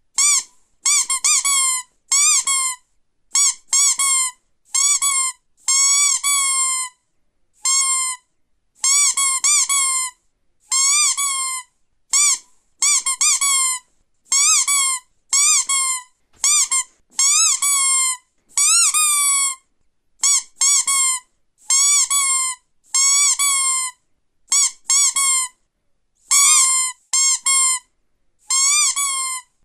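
Squeaky toy squeezed over and over, giving a long series of short, pitched squeaks about one or two a second, some in quick doubles, with brief silences between.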